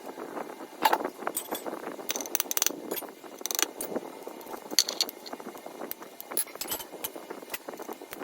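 Small metal parts and hand tools clinking and knocking during an engine teardown: irregular sharp clicks with several bright, ringing metal strikes.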